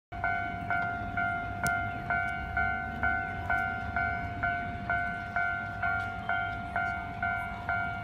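Japanese railway level-crossing warning bell ringing, struck evenly about twice a second, each stroke a ringing tone that carries into the next. It sounds with the barriers down, warning of an approaching train.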